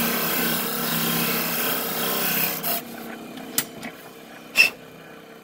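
A pen blank is sanded against a spinning sanding disc on a lathe, a steady rasping over the motor hum, squaring the blank's end flush to its brass tube. The sanding stops about two and a half seconds in, and two sharp clicks follow, the second louder.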